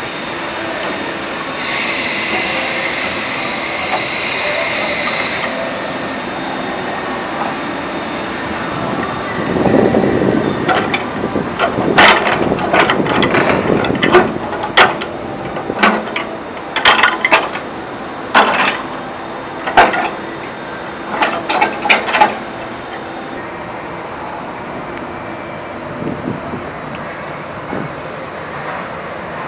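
Heavy welded-steel cart rolling over pavement on 8-inch poly-on-iron casters, with a steady rolling rumble. From about ten seconds in to about twenty-two seconds it gets louder, with a run of sharp metallic clanks and rattles from the steel frame, then settles back to a steady rumble.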